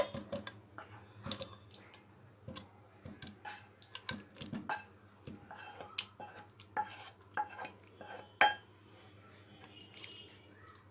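A spatula stirring in a cooking pot, with repeated sharp clinks and scrapes against the pot; the loudest knock comes about eight and a half seconds in, and the stirring stops soon after.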